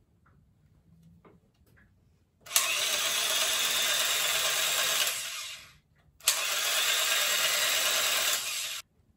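Electric cut-pile rug tufting gun, its needle mechanism driven by a drill motor, run twice in the air on its slowest setting. Each run lasts about three seconds, starting sharply, running steadily and dying away, with a short gap between the two.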